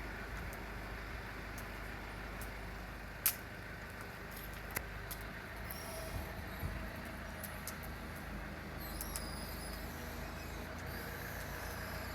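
Wood fire burning in a Solo Stove Yukon fire pit, with scattered crackles and one sharp pop about three seconds in, over a steady low rumble.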